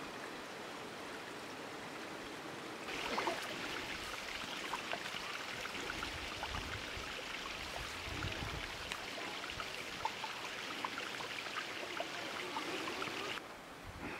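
Steady rushing noise of flowing water, brighter and louder from about three seconds in, with faint scattered ticks over it.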